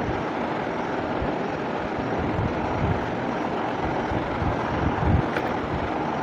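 Steady background noise, an even rushing hiss with fluttering low rumble underneath, and one light tick about five seconds in.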